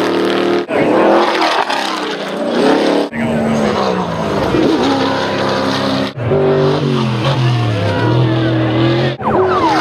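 Off-road race truck engines revving hard over a dirt jump, the engine note climbing and dropping with throttle and gear changes. The sound comes as several short cuts of different trucks, each breaking off abruptly.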